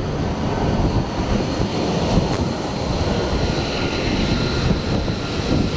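F-35C Lightning II fighter's jet engine running on a carrier-deck landing rollout: a loud, steady rushing noise with a faint, steady high whine.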